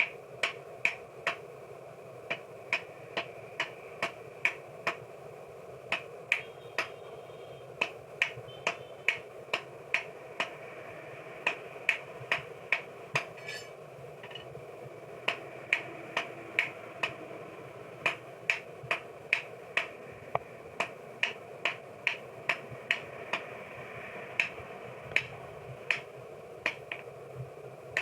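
Hammer blows on steel forged on an anvil: sharp ringing strikes about two a second, with a short pause midway, over a steady hum.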